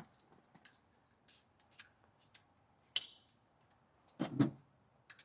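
Light clicks and taps of small metal parts and tools being handled on a bench, with a sharper tick about three seconds in and a duller knock a second later.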